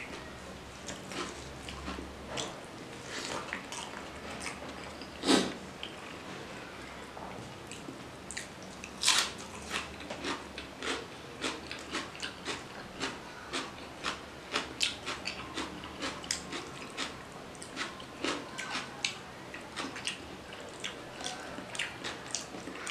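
A person eating rice and fish curry by hand: close, wet chewing and mouth clicks, with fingers squishing and mixing the rice. There are many short clicks a few times a second, and two louder ones about five and nine seconds in.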